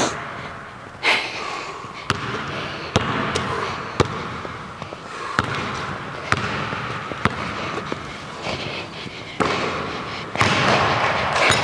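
A basketball dribbled on a hardwood gym floor, with sharp bounces coming irregularly about once a second.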